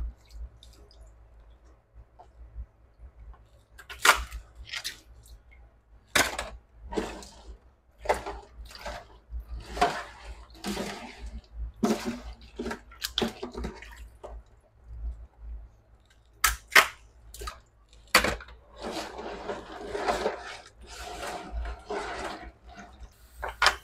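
Crabs being handled and scrubbed in a stainless steel sink by rubber-gloved hands: irregular clacks and knocks of shell against the metal. The handling turns to a denser, steadier scrubbing noise near the end.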